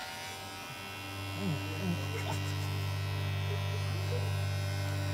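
Cordless Kemei electric hair clipper buzzing steadily as it clips a dog's matted fur. About a second in, low, sustained string music comes in underneath.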